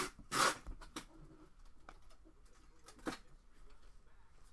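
Chrome trading cards being slid and flicked against each other in the hands as a stack is sorted: a few short swishes, the strongest at the start, about half a second in and about three seconds in.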